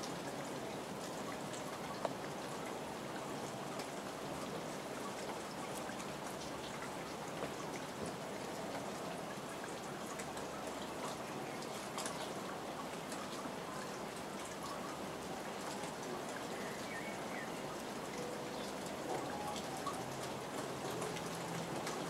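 Steady rain falling, with individual drops ticking close by and one sharper tap about two seconds in.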